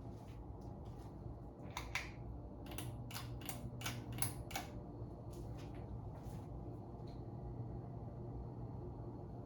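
Litex Ellington ceiling fan motor running with a steady low hum; the fan has a bad capacitor. A run of sharp mechanical clicks comes over it, densest from about two to five seconds in.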